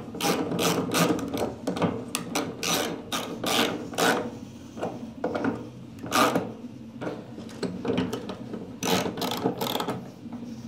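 3D-printed plastic bolts being tightened in a wall panel brace with a 15 mm wrench: a run of irregular clicks and scrapes. The bolts are being brought only snug, as plastic bolts snap if forced.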